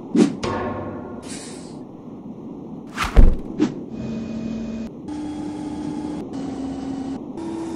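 Cartoon machine sound effects as a dome turns into a rising mechanical pole. It opens with a sharp clank and a short hiss, then comes a heavy thud about three seconds in, the loudest sound. After that comes a chain of steady motor whirs, each about a second long, stepping up and down in pitch with short breaks between them.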